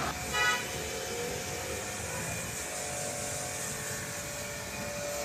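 Clif Max domestic pressure washer running: a steady electric motor and pump hum with the high hiss of the water jet. A short pitched tone sounds about half a second in.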